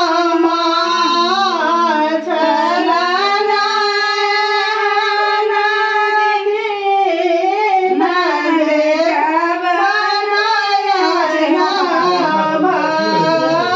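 A woman singing a slow, unaccompanied melody with long held notes that bend and waver. A lower voice or tone joins underneath near the start and again near the end.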